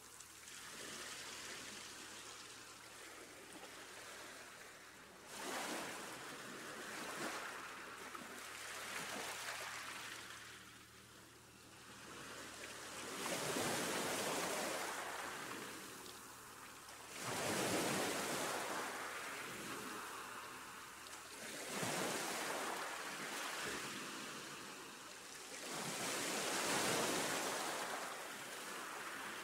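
Waves washing in and out, a rushing noise that swells and fades every few seconds.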